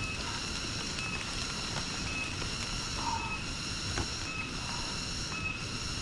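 Rainforest insect chorus: a steady, high-pitched drone in several layered tones, with a short high note repeating about once a second.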